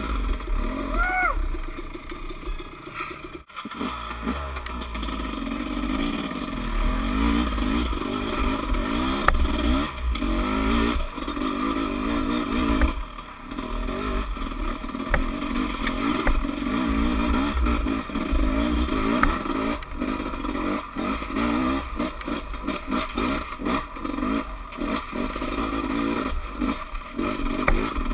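Off-road dirt bike engine ridden on a rough trail, its revs rising and falling continually with the throttle, with frequent knocks and clatter as the bike goes over bumps, thickest in the second half.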